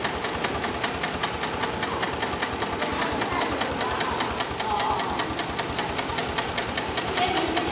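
Sailmaster 366-76-12 heavy-duty industrial zigzag sewing machine running steadily, its needle bar and shuttle giving a fast, even clatter of several stitches a second as it sews through a strip of sail material.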